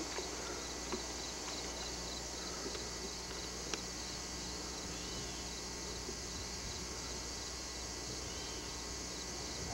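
Steady outdoor insect chorus of crickets or cicadas, a continuous high shrill, with a couple of faint clicks about one and four seconds in.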